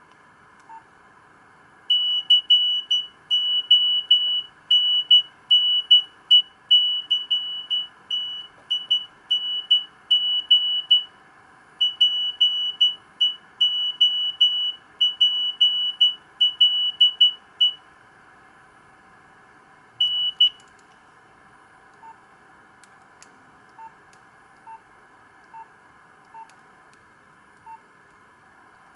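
Nokia 2865i phone playing a beeping ringtone: a single high-pitched beep repeated in a quick rhythmic pattern for about sixteen seconds, then one more beep. After that come faint, lower beeps about once a second.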